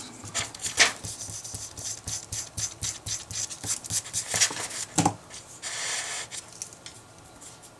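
Handwriting on paper: a string of short scratchy strokes and taps, with one longer scratching stroke about six seconds in.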